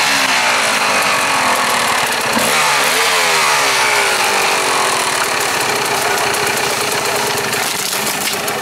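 Two-stroke dirt bike engine revving up and down, its pitch falling and rising over the first few seconds, then running on at a steadier pitch while the bike labours up a steep slope.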